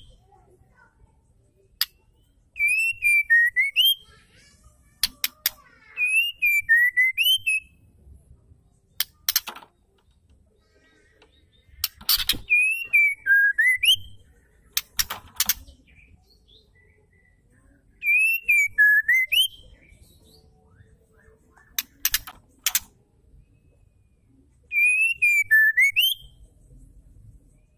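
White-rumped shama calling over and over every few seconds. Each call is a short whistle that slides down and then jumps sharply up, wrapped in dry clicks and high chatter, with a few bursts of clicks alone in between.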